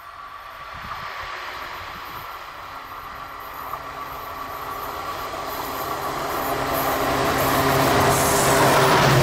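A WDP-4D diesel locomotive approaching, growing steadily louder. The hum of its EMD two-stroke engine becomes clear about halfway through and rises to the loudest near the end.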